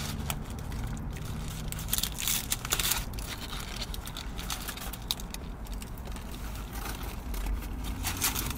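Eating sounds from crispy fast food: scattered crunching and crinkling from a fried chicken sandwich and its wrapper, a cluster of sharp crunches about two to three seconds in.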